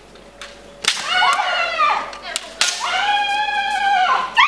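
Bamboo shinai strike cracking sharply about a second in, followed by long drawn-out kiai shouts from the kendo fighters. The second shout is held for over a second, and a rising yell comes right at the end.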